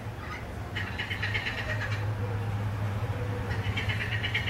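Parrots calling during courtship: two bursts of rapid, repeated notes, each about a second long, one about a second in and one near the end. A steady low hum runs underneath.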